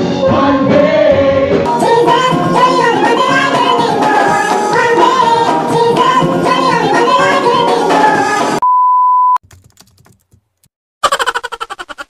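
Live band with singers performing a song. The voices bend over drums and instruments. Then a single steady beep lasts under a second, followed by a short gap and a quick stuttering burst of rapid pulses near the end.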